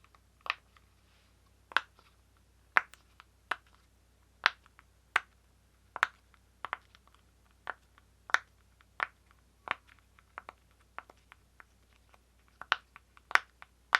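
Silicone push-pop fidget toys (strawberry and pineapple shapes) being pressed bubble by bubble with the fingers, giving sharp little pops at an uneven pace of about two a second.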